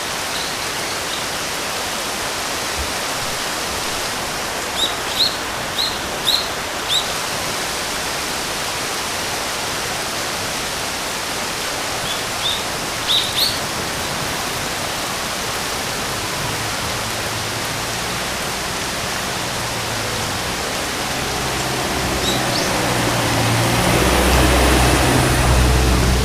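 Steady rain hiss with short, high bird chirps in two quick runs of four or five calls and once more later. A low hum comes in past the middle and swells near the end.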